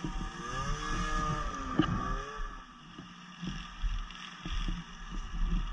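Snowmobile engine passing close by, its pitch sliding up and down through the first two seconds, with a sharp knock partway through; then a lower, uneven rumble.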